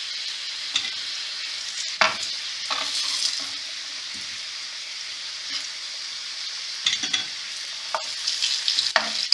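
Corn-flour-coated sweet potato slices sizzling steadily in hot oil in a frying pan, with a slotted spatula knocking and scraping against the pan now and then as the slices are moved and lifted.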